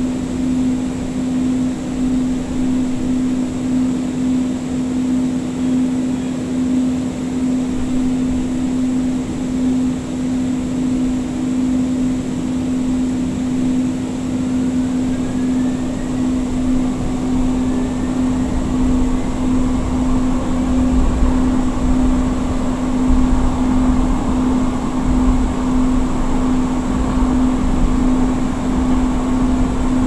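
Interior of a Siemens S200 light-rail car in motion: a steady hum over wheel-and-track rumble, with a few faint rising whines from its IGBT-VVVF traction drive. The rumble grows heavier in the second half.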